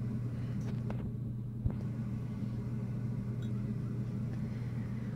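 Steady low background hum, with a faint click about a second and a half in.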